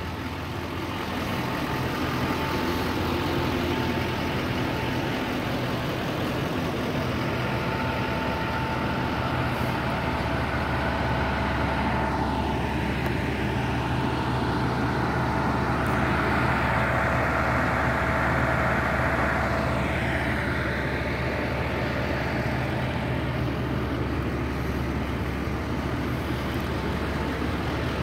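Parked emergency vehicles, an ambulance and a fire truck, running at idle: a steady low engine hum with a few faint held whining tones. Partway through, a broader hiss swells for a few seconds and then settles back.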